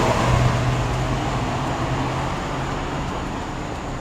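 A car passing on the street, its engine hum and tyre noise fading as it moves away.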